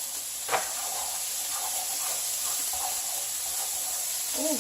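Bacon and vegetables sizzling in a frying pan, a steady high hiss, with one sharp click about half a second in.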